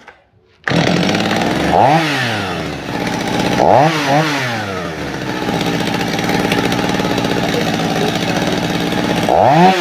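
Stihl MS 250 two-stroke chainsaw catching and starting abruptly under a second in, then idling, with short throttle blips about two seconds in, twice around four seconds, and again near the end.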